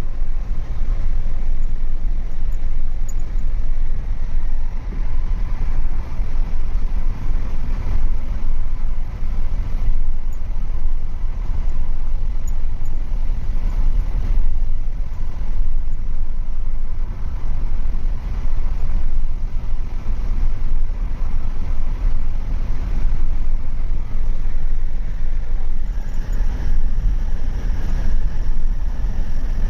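A car driving along a road: steady road and engine rumble with no letup.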